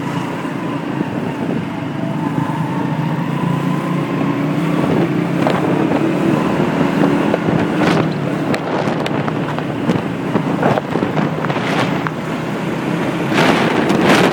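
Motorbike engine running steadily under way, with road noise. Wind buffets the microphone in gusts, more and more often in the second half.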